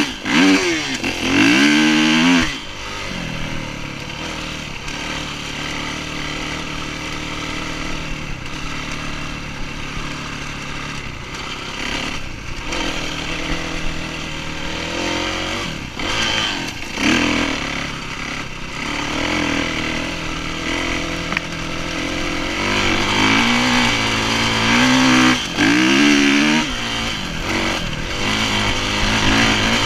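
Kawasaki dirt bike engine under way, revving up and easing off as the rider works the throttle and gears. It revs hard in the first couple of seconds and again a few seconds before the end, runs more steadily in between, and drops off briefly a few times when the throttle is chopped.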